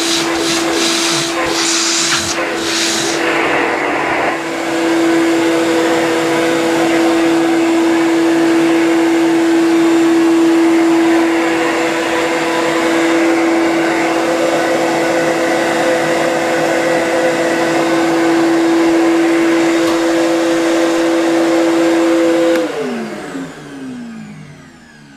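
Ridgid 14-gallon NXT shop vac running for its first test on the new cart, pulling air through its hose and a Dustopper cyclone bucket with a steady whine that gets louder about four seconds in. Near the end the motor shuts off and winds down, its pitch falling.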